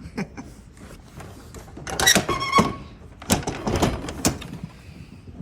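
Barn pen gate being worked open: a series of sharp knocks and rattles, in clusters about two seconds in and again near four seconds, with a short squeak among them.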